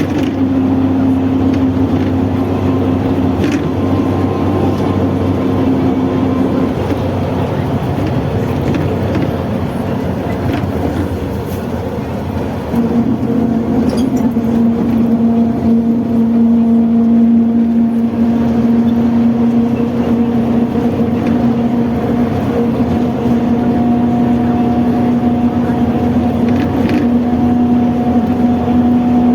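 Mercedes-Benz OF-1721 bus driveline with its driveshaft whining loudly over the running engine. The steady whine drops away about 7 s in and comes back louder about 13 s in, then creeps slowly up in pitch.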